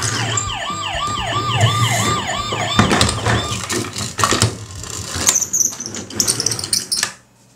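Electronic siren of a battery-powered toy ambulance: a quick falling tone repeating about four times a second, which stops about three seconds in. Then come clicks and knocks of plastic toy vehicles being handled on the table, and the sound cuts off just before the end.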